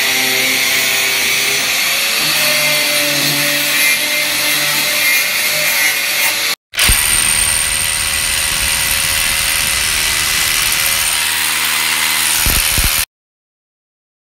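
Power tools working concrete: first an angle grinder with a diamond wheel running at speed, then, after an abrupt cut, an electric hammer driving a chisel into a concrete wall to cut a channel. The sound stops dead about a second before the end.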